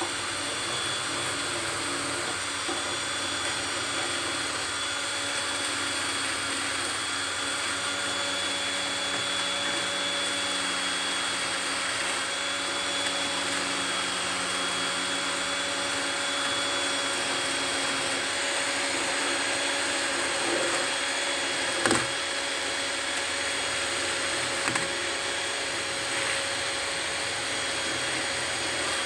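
Cordless drill spinning a wire brush against the teeth of a chainsaw chain, scrubbing off oil and sawdust; the drill runs steadily with one sharp knock about 22 seconds in.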